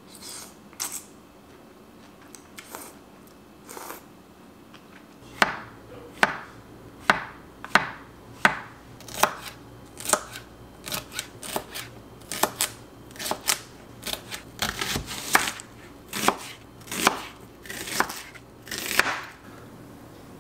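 Kitchen knife slicing green bell pepper on a cutting board: a run of sharp knife strikes, about one or two a second, starting about five seconds in. It ends with a brief scrape on a metal grater.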